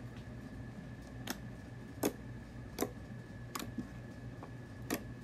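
Glue slime, activated with contact lens solution and baking soda, being poked and pressed by fingertips, giving about five sharp clicks, roughly one every three-quarters of a second.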